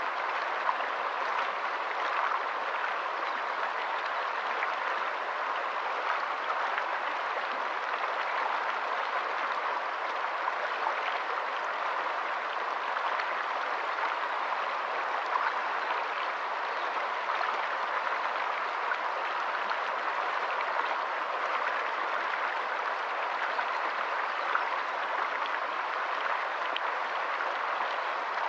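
Shallow rocky stream running over stones in small rapids: a steady rush of water with many small splashes and drips standing out from it.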